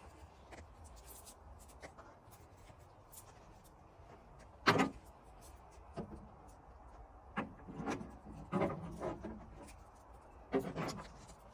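Scattered clicks and knocks of a saw chain and bar being handled and fitted on a chainsaw, the sharpest knock near the middle and a run of smaller clinks toward the end.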